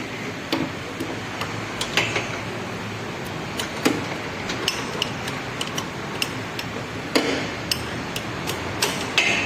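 Irregular metallic clicks and knocks of hand tools at work in a car's engine bay, over steady workshop background noise, as the engine support bar is slackened to lower the engine onto its new mount.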